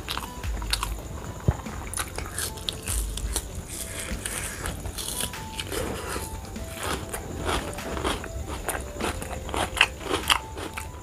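Close-up eating sounds: crisp crunching bites of raw onion and chewing of a mouthful of rice and curry, a steady run of sharp crunches with the loudest just before the end.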